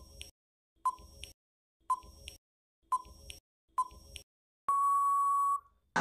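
Quiz countdown timer sound effect: five short beeps about a second apart, then one longer steady beep near the end as time runs out.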